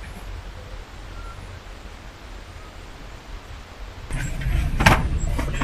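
Quiet outdoor pistol-range background, then about four seconds in a steady low hum comes in and a single sharp pistol shot cracks out near the end.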